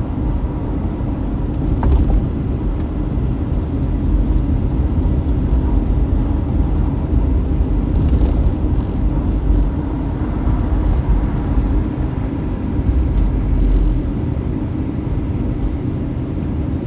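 Steady low rumble of a car being driven, with road and engine noise.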